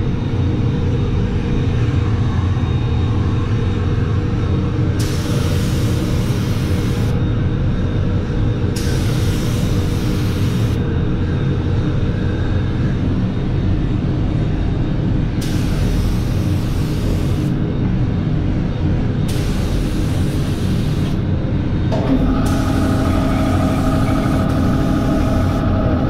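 Handheld paint-drying blower blowing air onto a freshly sprayed test panel: a steady rumbling rush of air, with a sharper hiss that comes and goes five times for about two seconds at a time. A steady hum joins in near the end.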